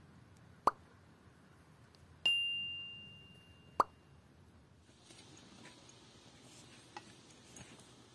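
Subscribe-reminder sound effect: a sharp click, then a bright bell ding that rings out for over a second, then another sharp click. After that only a faint outdoor background with a few small ticks.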